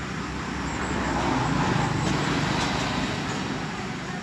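A passing road vehicle: a rushing noise that builds from about a second in, peaks near the middle and fades away, over a steady low hum.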